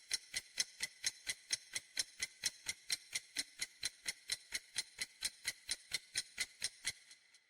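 Ticking clock sound effect used as a quiz countdown timer: even, sharp ticks at about four a second that stop about seven seconds in.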